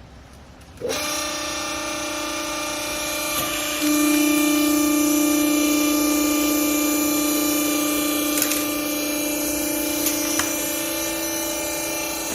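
Cloth compress baler's hydraulic power unit starting up about a second in and running with a steady hum and whine, growing louder about four seconds in.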